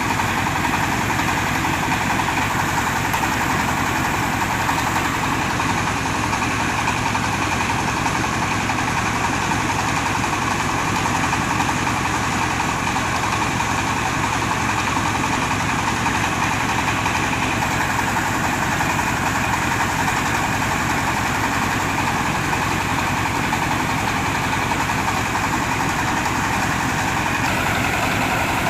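Diesel engine of a mobile rice huller running steadily under a constant load, with dense, even machine noise.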